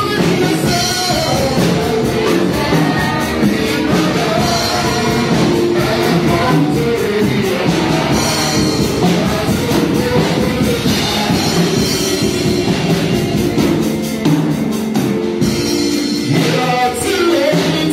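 Live gospel song played loud over a PA: electric keyboard with a band backing, and a man singing into a handheld microphone.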